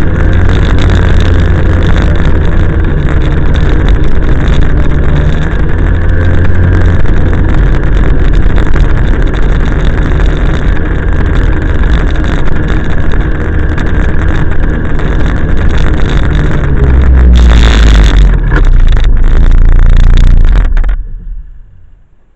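Snowmobile engine running steadily under way, with heavy wind rumble on the microphone. About three-quarters through there is a brief louder rush, and near the end the sound drops away sharply to near silence.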